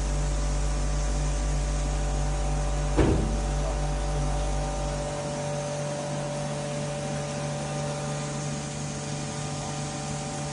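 Brake disc grinding machine running steadily, grinding a brake disc: a constant motor hum with a few steady whining tones. A single sharp knock comes about three seconds in, and a deep low hum stops about two seconds later while the rest of the machine keeps running.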